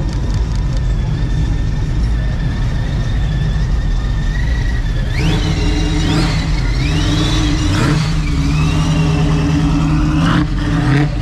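Car engine running with a deep exhaust rumble, then revved up and down several times from about five seconds in.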